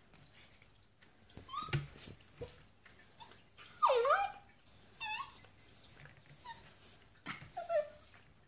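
Border collie whining and yipping in several short high-pitched calls while play-fighting with a cat, the loudest a falling-then-rising whine about four seconds in. A couple of sharp knocks come in between the calls.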